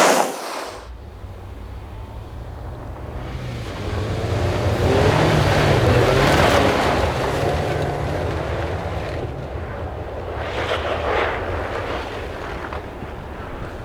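Rally car driving on a snow stage, its engine note and a hiss of tyre noise growing louder to a peak about five or six seconds in, then fading away.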